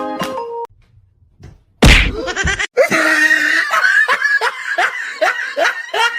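A sudden loud smack about two seconds in, then a run of short, rapid, laugh-like cries, each falling in pitch, about two or three a second.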